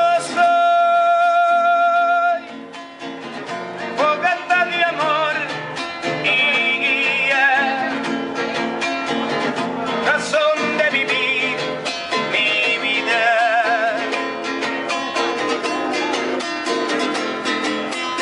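A man singing with vibrato to his own acoustic guitar accompaniment, holding a long note for about two seconds at the start.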